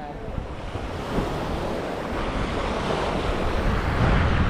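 Sea waves washing onto the beach, with wind buffeting the microphone in a low rumble. The wash slowly grows louder.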